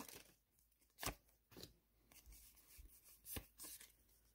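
Faint handling of a stack of Pokémon trading cards being slid out of an opened booster pack and squared up, with light rustles and two sharper taps, about a second in and again near three and a half seconds.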